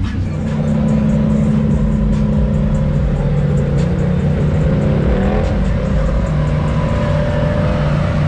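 ATV engine running hard at a steady pitch, its note climbing and shifting about five seconds in before settling again.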